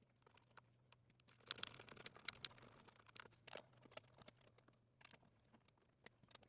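Faint scattered clicks and short scrapes of screws being undone and refitted with an Allen wrench while metal gaming-chair parts are handled, with a small cluster of sharper clicks about two seconds in.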